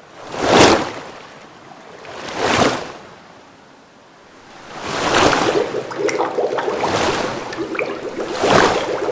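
Surf waves washing in, swelling and ebbing about every two seconds, with a longer stretch of steady washing in the second half and a faint hum under it.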